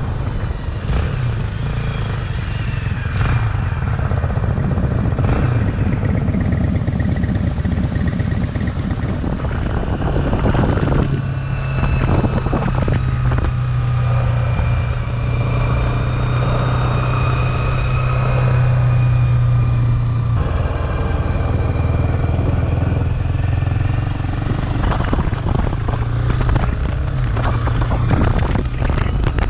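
Zontes 310 V motorcycle's single-cylinder engine running under way, heard from the rider's seat. The engine note holds steady through the middle, then drops to a lower pitch about two-thirds of the way in.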